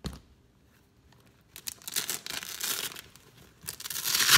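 Hook-and-loop closure on an Alpinestars Corozal adventure motorcycle boot being ripped open in two long tears, the second growing loudest near the end, after a short knock at the start.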